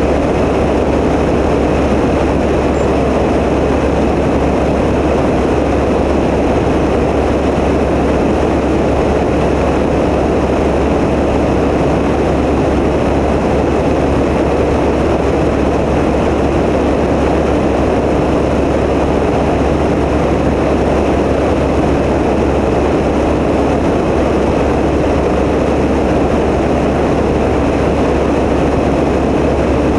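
Tecnam P92 light aircraft's piston engine and propeller running at a steady setting: a constant loud drone that holds unchanged throughout.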